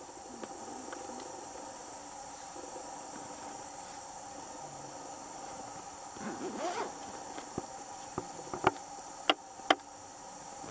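Steady chorus of rainforest insects holding a high, even drone, with a short call that wavers in pitch about six seconds in and several sharp clicks near the end.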